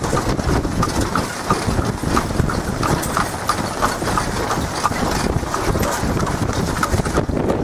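A horse's hooves clip-clopping on a paved road at a steady pace, a few even beats a second, over the low rumble of the moving buggy.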